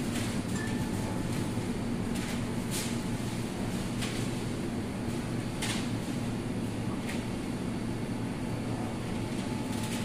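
Steady low hum of supermarket refrigerated display cases and ventilation, with a few light clicks scattered through it.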